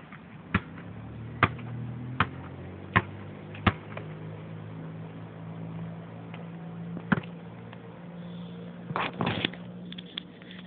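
Basketball being dribbled on an asphalt court: six bounces at a steady pace over the first four seconds, then a single bounce about seven seconds in. A low steady hum runs underneath, and a short cluster of handling knocks comes near the end.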